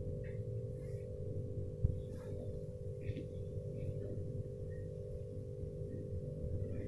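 A steady background hum made of several close tones, with a single soft knock about two seconds in and a few faint short ticks.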